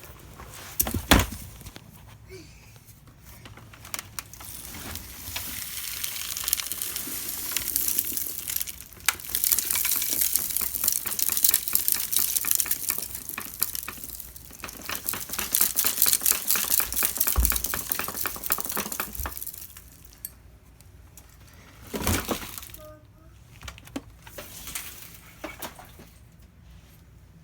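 Loose dry dirt rattling and crackling as a dense, gritty patter of fine clicks that swells over several seconds and then dies away. A single thump comes near the start and another a few seconds before the end.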